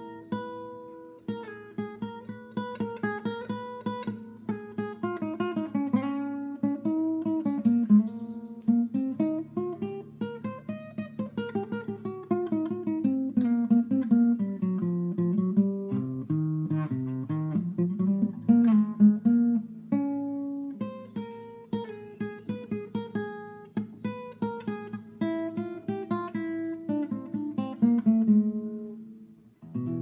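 Classical acoustic guitar played fingerstyle: a melody of plucked notes running up and down over a held low bass note. Near the end a last note is left to ring and fade away.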